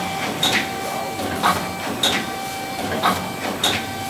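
Vertical form-fill-seal bagging machine running at 40 bags a minute: sharp mechanical clacks repeating every half second to second over a steady hum as it forms, fills and seals bags in its cycle.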